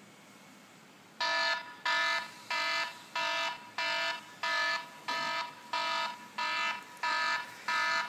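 Electronic alarm beeping: identical short pitched beeps repeating evenly, about one and a half a second, starting about a second in.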